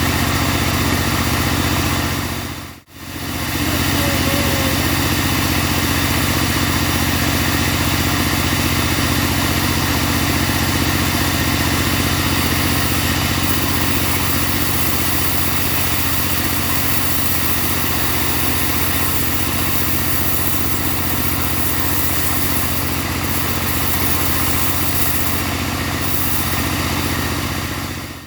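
Portable bandsaw sawmill running steadily under engine power. The sound drops out briefly about three seconds in, then carries on unchanged.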